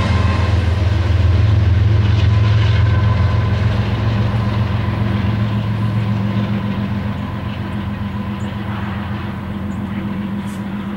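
A loaded coal train moving off, with the steady low drone of a diesel locomotive engine slowly fading.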